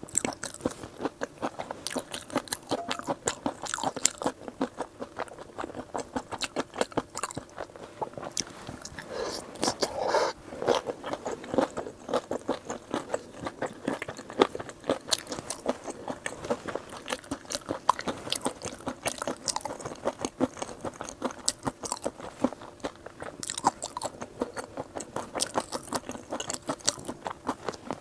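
A person chewing crunchy food close to the microphone: quick, crisp crunches one after another, without a break.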